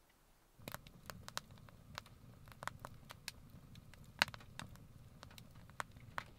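Wood fire burning in a stove, with irregular sharp crackles and pops over a low, steady rumble. It starts about half a second in.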